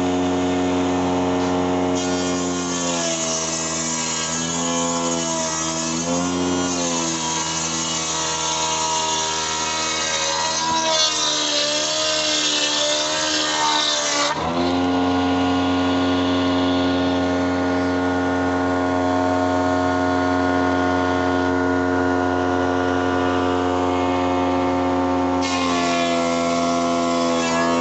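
Woodworking milling machine cutting a wooden board: a steady motor hum that sags and wavers in pitch under a loud cutting hiss while the board feeds through the cutter, then rises back to an even hum as it runs free for about ten seconds, and bogs down under a new cut near the end.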